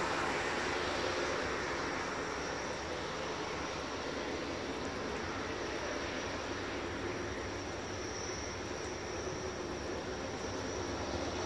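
Steady distant rumble and hiss of an approaching diesel-hauled freight train still far off down the line, with a faint high steady tone from about two seconds in.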